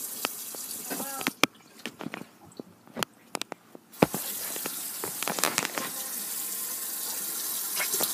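Bathroom sink tap running water into the basin. It stops about a second and a half in and starts again about four seconds in, with scattered clicks and knocks.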